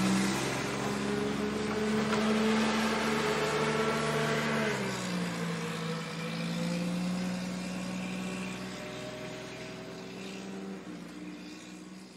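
Motor running with a steady hum. Its pitch drops about five seconds in, then slowly rises, and the sound fades out near the end.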